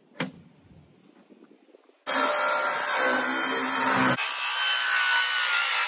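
A sharp knock just after the start. About two seconds in, a circular saw starts and cuts steadily through a thin sheet of wood veneer.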